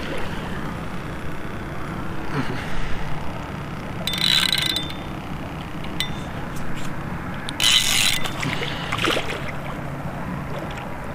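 Fishing reel being cranked under the load of a big hooked fish, with two short bursts of drag ratcheting as the fish pulls line, about four and eight seconds in.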